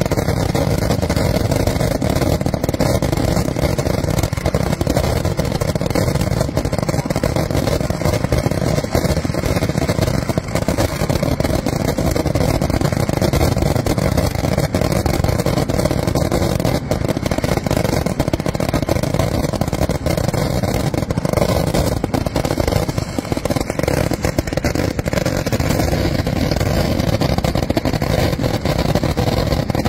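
A dense, unbroken barrage of firecracker explosions from Kerala festival fireworks (vedikkettu), with dyna crackers going off so fast that the blasts run together into one continuous din.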